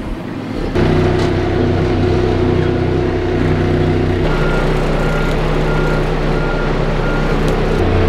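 Diesel engine of a Sakai soil compactor running, heard from inside its cab, growing louder about a second in. From about halfway, a reversing alarm beeps in an even series.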